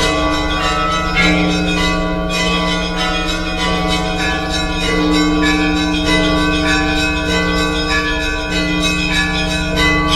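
Orthodox church bells ringing a continuous peal: quick, repeated strikes of smaller bells over the longer ringing tones of larger bells.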